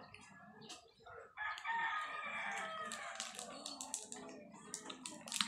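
A rooster crowing once, about one and a half seconds long, starting a little over a second in. Then a run of crinkles and crunches from the foil wrapper of a Choco Mucho chocolate wafer bar being handled and bitten.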